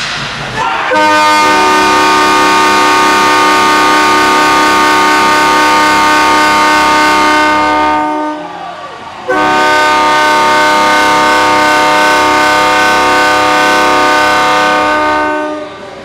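Ice rink goal horn sounding two long steady blasts of about seven seconds each with a short break between them, signalling a goal scored.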